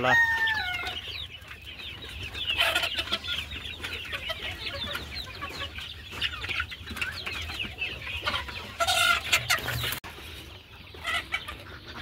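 A flock of desi chickens clucking as they feed: many short, overlapping calls, with one longer falling call right at the start.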